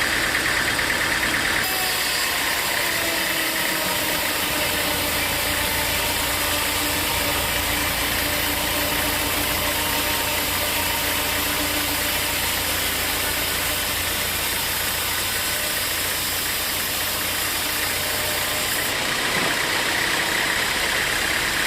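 Sawmill saw and its drive running steadily, a loud continuous mechanical noise. Its sound changes about two seconds in and changes back near the end.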